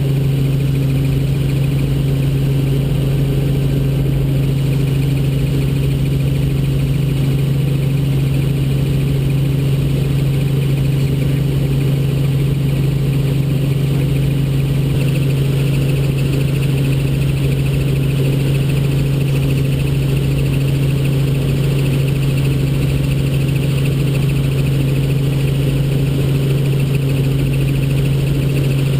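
Robinson R44 Raven II helicopter in level cruise flight: its six-cylinder Lycoming piston engine and rotors make a loud, steady drone heard from inside the cabin, dominated by a deep hum that holds one pitch.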